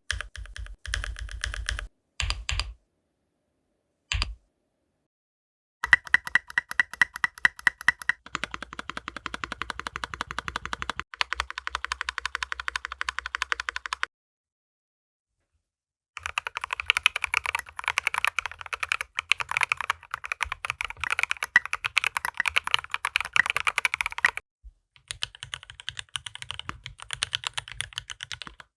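Fast typing on a custom mechanical keyboard (Dolinger RE) fitted with OP Black switches whose top housings are lubed with grease. The typing comes in several separate takes with dead silence between them, and each take is on a different set of keycaps, so the pitch and tone of the key clacks change from take to take.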